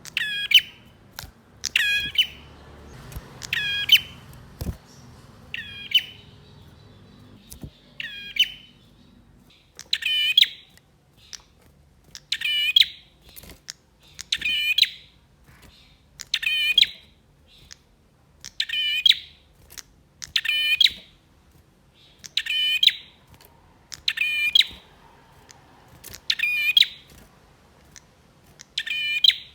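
Male prinia (prenjak) calling: a short, rapid, high-pitched phrase repeated about every two seconds.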